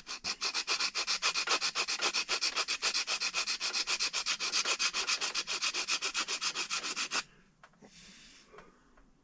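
120-grit sandpaper rubbed in quick, even back-and-forth strokes across the end of a 3D-printed plastic part, squaring it up. The strokes come about eight a second and stop about seven seconds in.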